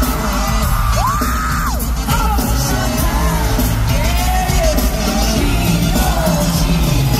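Live K-pop concert music from an arena sound system: loud, with a heavy bass and singing, over which fans scream and yell in rising-and-falling calls, one long one about a second in.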